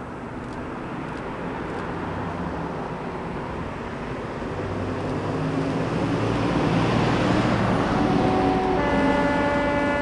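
Three Class 37 diesel locomotives with English Electric V12 engines approaching under power with a loaded coal train, their engine noise building steadily. Near the end the lead locomotive sounds its two-tone horn, a short lower note followed by a longer higher one.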